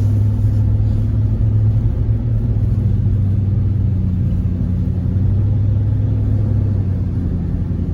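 Chevrolet Tahoe Z71 driving, heard from inside the cabin: a steady low drone of engine and road noise.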